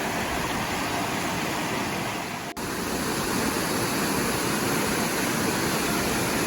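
Steady rushing of a small waterfall and creek, which drops out briefly about two and a half seconds in.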